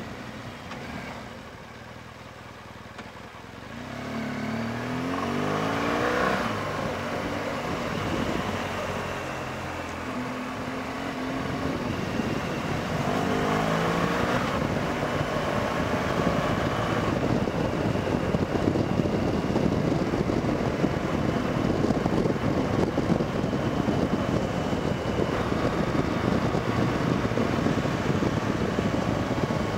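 BMW R1200GS Adventure's boxer-twin engine accelerating, its pitch rising twice as it pulls through the gears, then running steadily at speed under a constant rush of noise.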